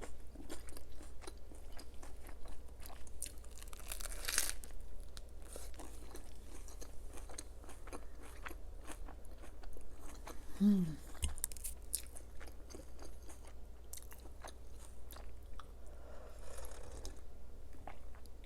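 Close-miked chewing of crisp food, with many small irregular crunches and a denser crunch about four seconds in.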